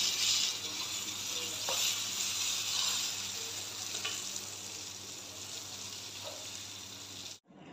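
Hot oil sizzling on a freshly fried whole fish as it is slid from the pan onto a steel plate with a wooden spatula, with a few light taps. The sizzle slowly fades and cuts off abruptly near the end.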